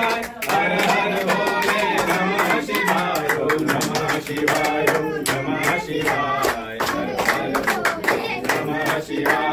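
Group devotional singing to Shiva, with rhythmic hand-clapping throughout.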